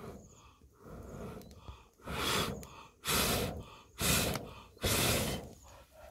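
A man blowing hard into a small wood fire under a cooking pot to fan the embers: four long puffs of breath about a second apart, starting about two seconds in, with quieter breathing before them.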